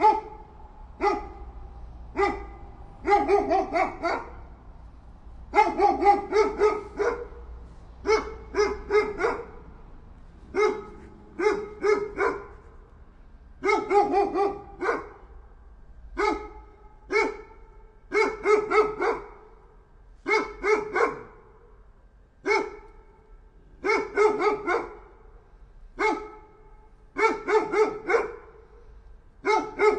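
A dog barking repeatedly: single barks and quick runs of three to five, with short pauses between.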